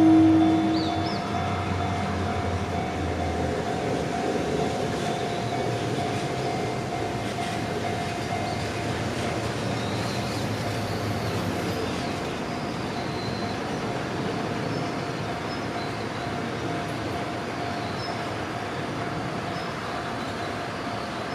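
JR Minobu Line electric train running along the track: a steady rumble of wheels on rails with a faint steady whine, slowly easing in level after a louder start.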